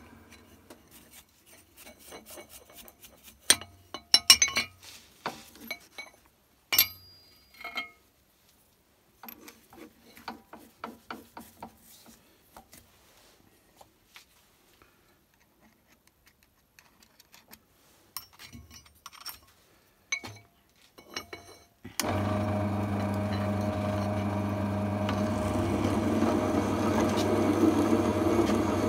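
Drill press spindle running down, then about twenty seconds of handling: a brush scraping metal chips and steel plate and chips clinking in a metal tray. About 22 seconds in the drill press motor switches on suddenly and runs steadily, with a multi-flute countersink cutting into the steel plate near the end.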